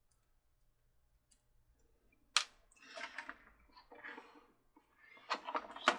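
Small plastic parts being handled as a gearbox is fitted into a toy Ferris wheel: a sharp click about two and a half seconds in, then light, scattered clicks and rattles.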